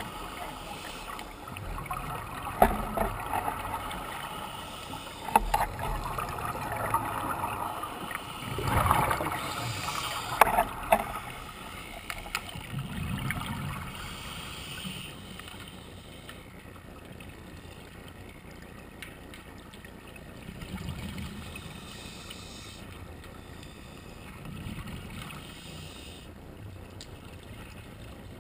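Underwater sound of a scuba diver breathing through a regulator: exhaled bubbles burst out in swells every few seconds over a steady hiss. A few sharp knocks come in the first half.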